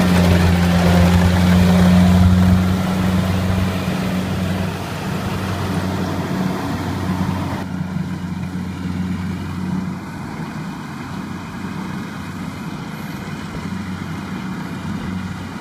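Kubota crawler combine harvester running under load as it harvests rice: a steady low engine hum, loud up close at first and growing fainter as the machine works away down the field. The high hiss drops away abruptly about halfway through.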